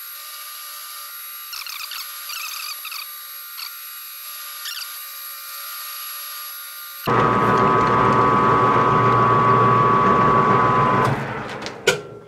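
Metal lathe taking a single-point threading pass in 4140 steel: a steady run with short squeaky scratches as the tool cuts. About seven seconds in the lathe is suddenly much louder, running with a steady whine, then winds down, with a sharp clack just before the end.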